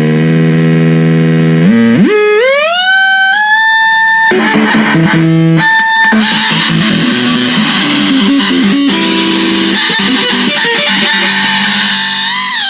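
Electric guitar through effects pedals making weird sounds: a low held note, then a pitch that sweeps upward about two seconds in and holds high, then dense, distorted playing from about six seconds on.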